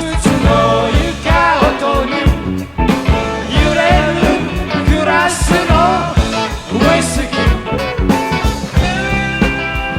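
Rock band music: a song with singing over electric guitar, bass and drums.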